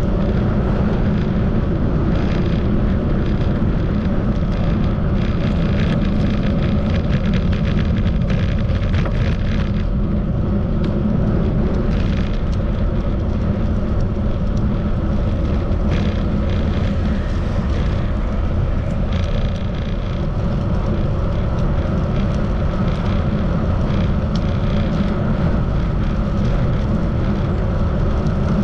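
Wind buffeting the microphone of a camera carried on a moving bike, over steady rolling road noise, with a few small clicks scattered through.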